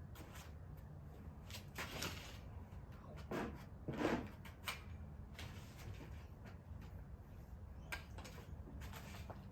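Handling noises while hanging laundry: scattered light clicks and knocks, with two louder knocks about three and a half and four seconds in, over a steady low hum.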